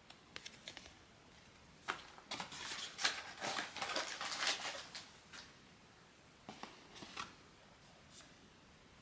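Blind-box packaging being handled: a few light clicks, then about three seconds of dense rustling and crinkling of paper and cardboard, then a few scattered taps near the end.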